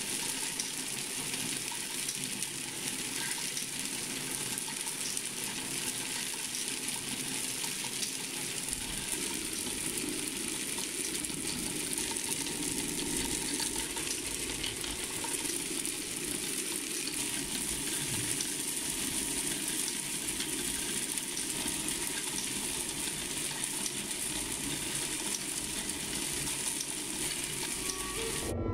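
Star roller drum turning with coated rice puffs tumbling inside: a steady, dense rattle of many small light grains sliding and dropping against the drum wall as they pick up black powder coating.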